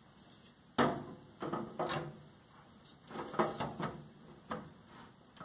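A series of clunks and scraping knocks as a hard drive is handled and fitted into a PC case's drive bay, loudest about a second in, with a cluster of knocks around the middle.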